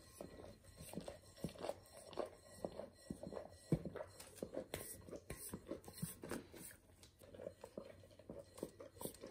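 A dog licking the inside of a glass bowl, its tongue lapping and smacking in quick repeated strokes, about three or four a second.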